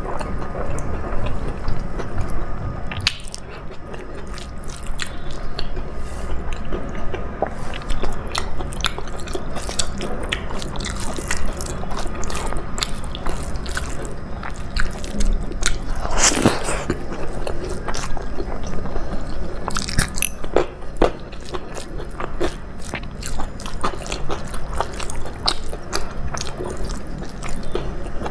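A person chewing mouthfuls of rice, dal and vegetable curry close to the microphone: wet mouth and lip smacking with many small clicks and occasional crunches.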